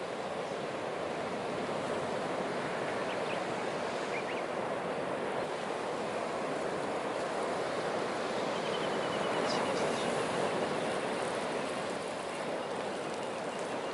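Steady wash of sea surf on the shore, with a few faint, small crackles from a driftwood fire.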